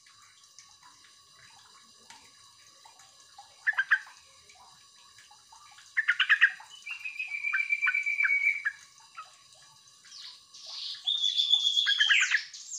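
Yellow-vented bulbul (trucukan) calling to other birds in separate short phrases. A brief one comes about four seconds in. Another about six seconds in runs into a held whistled note broken by quick strokes, and the loudest, highest phrase comes near the end.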